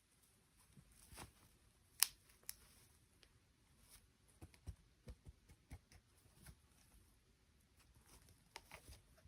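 Faint, scattered clicks and taps of small objects being handled, the sharpest click about two seconds in.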